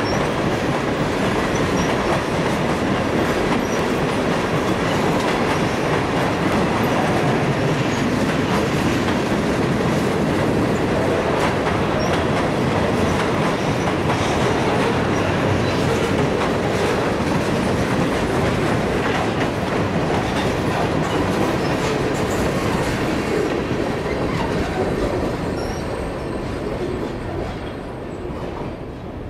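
Freight train cars rolling past, a steady noise of steel wheels on rail, fading over the last few seconds as the end of the train goes by and away.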